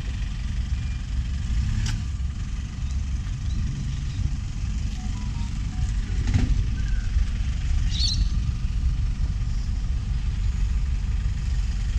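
Kubota KX033 mini excavator's diesel engine running steadily as the machine tracks along, with a few faint knocks.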